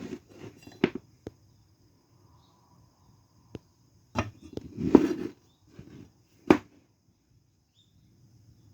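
Scattered knocks and clatter of things being handled, with a louder scraping, rustling burst a little past the middle. No motor is running.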